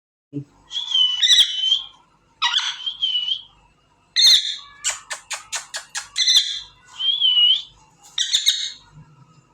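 African grey parrot calling: a string of short whistles that dip and rise in pitch, mixed with harsher squawks, and a quick run of about eight clicks a little past the middle.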